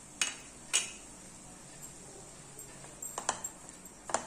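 A spatula knocking and scraping against a nonstick pan while sauces are stirred into vegetables: two sharp clicks in the first second, then a short cluster of knocks about three seconds in and another just after four.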